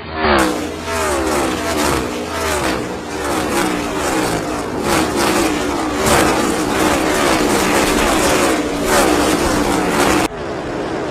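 NASCAR Next Gen stock car V8 engines running at racing speed, the pitch repeatedly sliding down and climbing back again. Near the end the sound cuts abruptly to a quieter, duller recording of engines.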